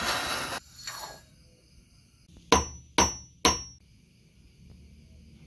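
A gas torch hissing, cut off just after the start, then three sharp hammer strikes on metal about half a second apart, each ringing briefly. A faint steady high chirring follows.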